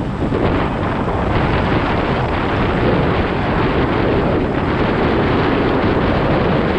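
Wind buffeting the camera microphone while a Yamaha Exciter motorcycle rides along at steady speed, with the engine and road noise as a steady rumble underneath.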